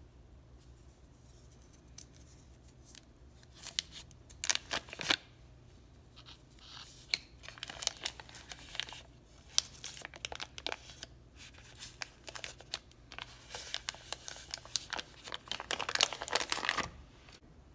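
Paper wrapper of a stick of butter crinkling and tearing as it is peeled open by hand. The crackles start a few seconds in and come in irregular bursts, heaviest near the end.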